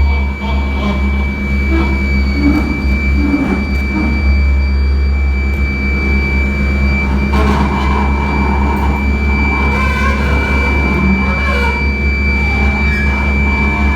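Experimental electroacoustic noise piece: a loud, steady low drone and a constant high whine, with irregular clicks and shifting rustling textures over them.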